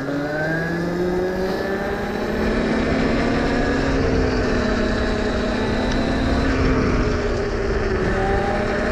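Electric pit bike's 72-volt motor and drivetrain whining. The whine rises in pitch as the bike speeds up over the first couple of seconds, then holds a steady pitch while cruising, over a low rush of wind and tyre noise.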